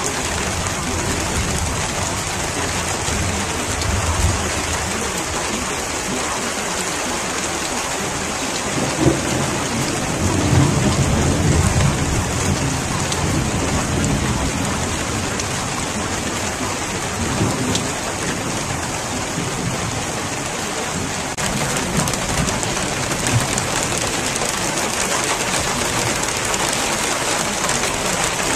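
Steady rain falling, with low thunder rumbling, briefly about four seconds in and longer from about nine to twelve seconds in. The rain hiss grows a little brighter about twenty seconds in.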